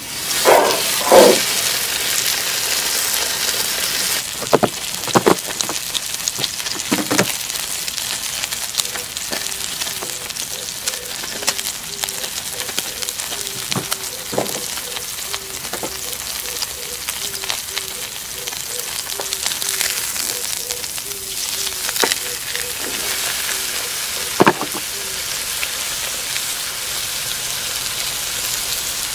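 Thick bone-in steak frying on a hot griddle pan, a steady sizzle that starts loud the moment the meat is laid down. A few sharp knocks break through, the loudest about a second in.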